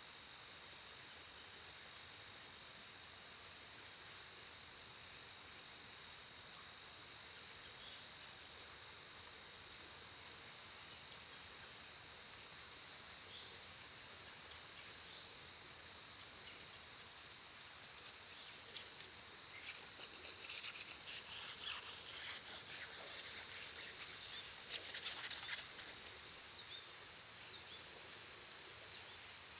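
Steady high-pitched chorus of insects trilling. A few faint rustles and ticks come about two-thirds of the way through.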